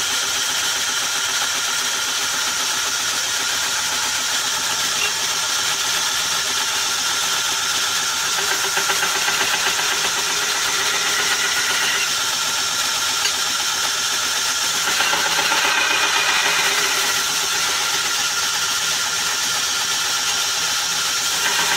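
Belt grinder motor and belt running steadily while a steel knife blade is ground against the belt to clean up the edges, the sound growing a little louder and rougher about fifteen seconds in.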